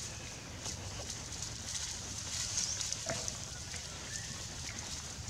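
Dry leaf litter rustling and crackling as baby macaques clamber about on it, with a brief squeak about three seconds in, over a steady high hiss.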